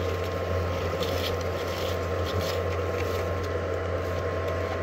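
Steady low buzzing hum of hornets flying around a broken-open nest, with faint light ticks over it.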